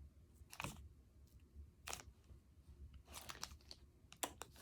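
Faint, scattered light clicks and crinkles of a gift and its wrapping being handled, over a low steady hum.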